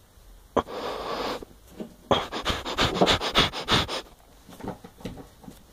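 Fabric rustling and scratchy rubbing as an arm drags across a bedspread while reaching toward a can on a bedside shelf. There is one longer rustle about half a second in, then a quick run of short scrapes for about two seconds, tailing off into a few softer ones.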